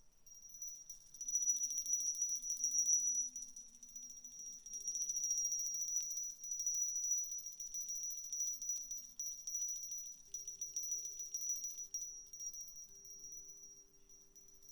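Soft music: shaken jingling percussion rustles steadily over slow held low notes that change every few seconds. A steady high-pitched whine runs underneath.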